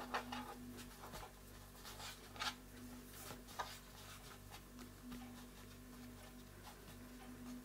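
Faint soft rubbing and light taps of hands rolling and pressing dumpling dough into a log on a plastic cutting board, over a low steady hum.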